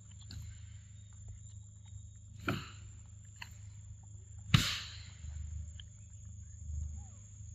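A macaque eating soft yellow fruit: two short, sharp, wet-sounding bites or smacks about two seconds apart, the second louder, over a steady high whine and a low hum.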